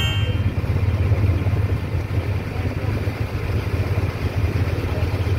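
Boat engine running steadily, a low continuous hum under an even wash of noise.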